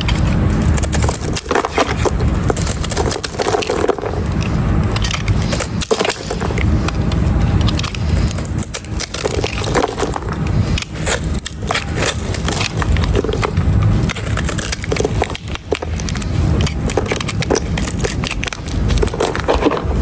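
Dry bar soap being scraped, a continuous crisp crackling and crunching as the shavings come away.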